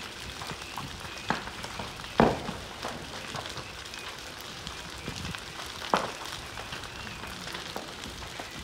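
A building fire burning with a steady crackling hiss, broken by a few sharp cracks and pops; the loudest comes about two seconds in and another about six seconds in.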